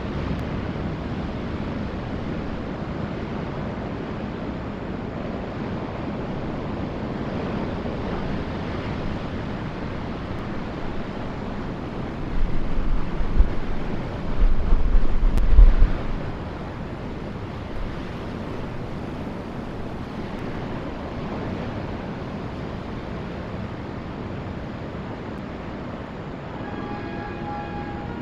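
Ocean surf breaking along the shore with wind: a steady wash of noise, with a louder low rumble for a few seconds about twelve seconds in. Near the end a passenger train's horn begins to sound, a chord of several steady tones, as the train approaches the station.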